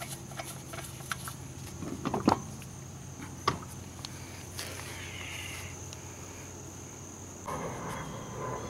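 Quiet outdoor background with a steady high-pitched tone, broken by two sharp knocks about two and three and a half seconds in. Near the end comes a rustling, handling noise as the plastic motor oil jug is taken hold of.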